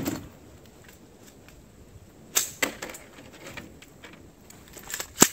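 Sharp metallic clicks and clacks of an AR-15 rifle being handled as the magazine is pulled out and the rifle is cleared: one at the start, then two quick pairs, about two and a half seconds in and near the end.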